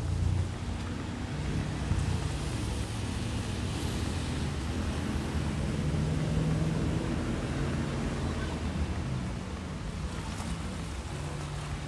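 Small waves lapping and splashing against a stone seawall, with wind rumbling on the microphone.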